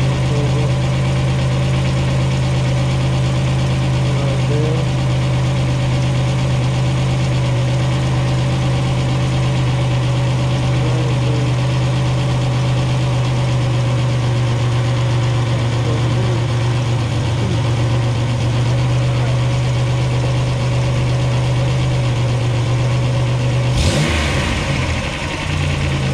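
Car engine idling steadily, run so the freshly welded exhaust pipe can be checked for leaking weld spots. Near the end a short, louder burst of noise breaks in.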